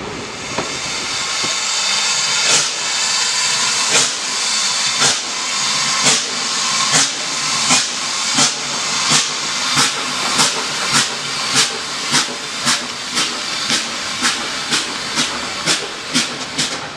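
USATC S160 steam locomotive pulling away from the platform: a steady hiss of escaping steam with exhaust chuffs that start slow and quicken steadily, from about one every second and a half to two or three a second.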